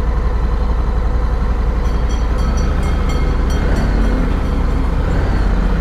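Honda Africa Twin's 1084 cc parallel-twin engine idling steadily with a low, fast-pulsing rumble. A run of light ticks comes about two seconds in.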